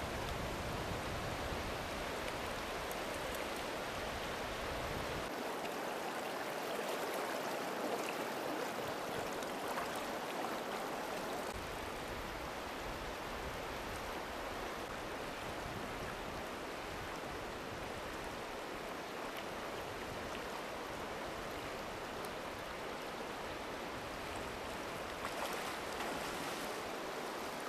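Shallow rocky river flowing steadily over boulders and stones, a constant sound of running water. A lower rumble under it fades out about five seconds in.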